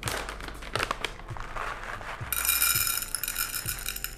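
Paper coffee bag crinkling as it is opened and handled, then whole coffee beans pouring and rattling into a dosing cup on a scale for a little over a second, starting about two seconds in.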